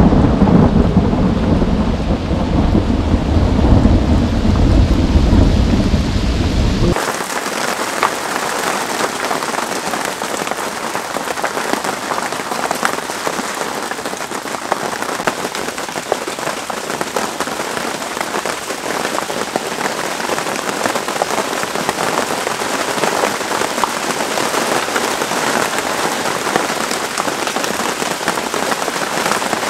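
Thunder rumbling under heavy rain for about the first seven seconds, then an abrupt change to steady heavy rain falling on the lake water, with scattered drop ticks.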